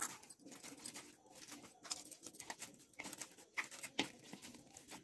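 Soft, oiled bhatura dough of flour and curd squishing and slapping as it is kneaded by hand in a glass bowl, in faint irregular strokes with a sharper slap about four seconds in.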